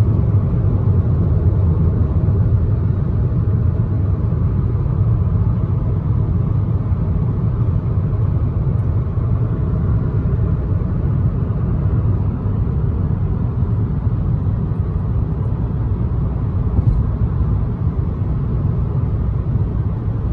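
Steady low rumble of a car driving on a highway, heard from inside the cabin.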